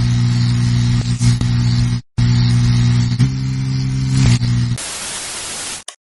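Glitch-style logo intro sound effect: a loud low electric buzz over static hiss, cutting out briefly about two seconds in and stepping up slightly in pitch a second later. It ends in about a second of plain white-noise static, then cuts off abruptly.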